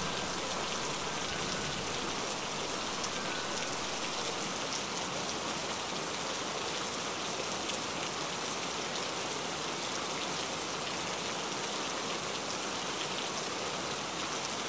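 Steady heavy rain falling, an even hiss with scattered faint drop ticks.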